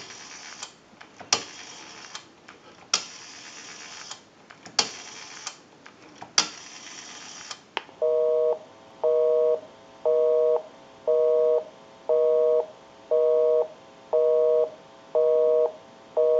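Rotary dial of an Automatic Electric three-slot payphone being wound and let run back several times, clicking as it returns. From about eight seconds in comes a busy signal: two low tones sounding together, pulsing on and off about once a second, meaning the number dialled is in use.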